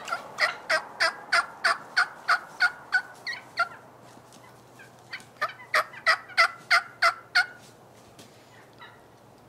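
Turkey yelping: a run of about a dozen evenly paced yelps, a pause, then a second run of about eight louder yelps.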